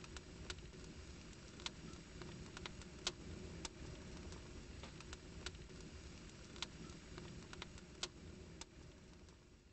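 Irregular sharp crackles and clicks over a low steady rumble, fading away near the end.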